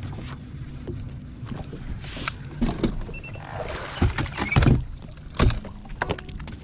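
Knocks, clunks and footsteps of someone moving about on the deck of a fiberglass bass boat, with the loudest thumps a few seconds in.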